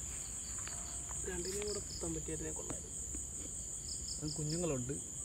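Steady high-pitched night chorus of crickets, with short chirps coming in groups of three or four. A voice speaks briefly twice over it.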